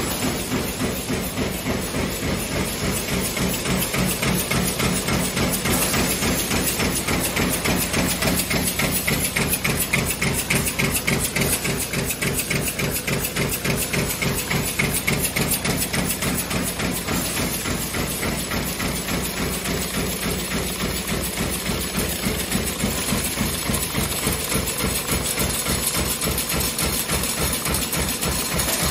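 High-speed CNC sheet-feed punch press stamping 83 mm tin can ends, a fast steady pounding at about 210 strokes a minute (three and a half a second), over a steady machine hum.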